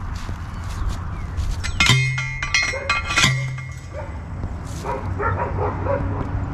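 Two loud metallic clanks about a second and a half apart, each ringing on briefly: a metal fence post being struck. A dog barks several times near the end.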